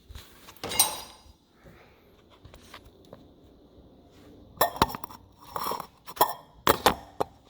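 Metal sink-drain parts clinking and scraping as they are handled: a short clatter about a second in, then a run of sharp clinks and knocks near the end.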